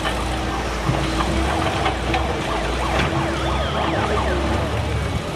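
Vehicle engines running with a steady low rumble. For a couple of seconds in the middle, a high wailing tone rises and falls rapidly over it.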